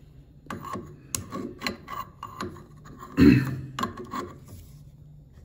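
A wrench being fitted onto a CNC router's collet nut, with the nut handled by hand: a run of light metallic clicks and knocks, the loudest about three seconds in.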